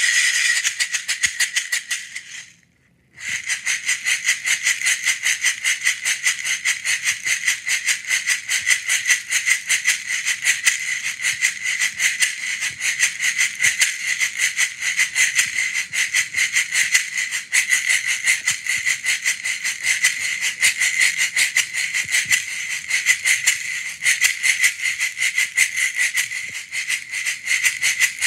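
Meinl SH15M wooden box shaker shaken by hand in a fast, even rhythm, making a dense, bright rattle. It breaks off briefly about two and a half seconds in, then carries on without a break.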